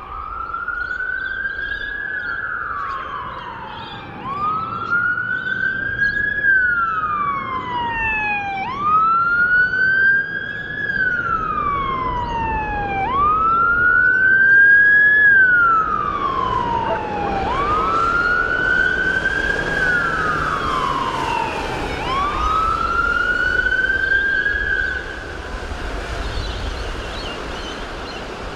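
Emergency-boat electronic siren wailing, a slow rise and fall about every four seconds, stopping near the end. Under it is the rush of the boat's twin outboard motors running at speed and its wake, growing louder through the middle as the boat passes.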